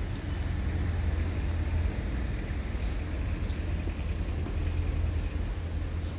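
City street ambience: a steady low rumble with an even background hiss and no distinct events.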